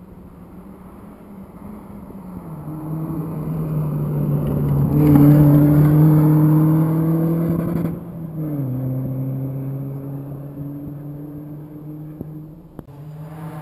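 Rally car on a gravel stage, its engine coming up at speed and growing louder to a peak about five seconds in, where it passes close with a rush of tyre and gravel noise. Just after eight seconds the engine note drops lower and fades as the car pulls away. Near the end the sound changes abruptly and another car's engine begins to rise.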